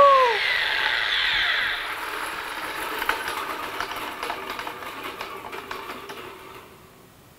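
Angle grinder driving a long extension arm with a cutting disc at its end, spinning down after being switched off: a whir that fades steadily over about six seconds, with scattered rattles and clicks from the arm. A brief falling squeal right at the start.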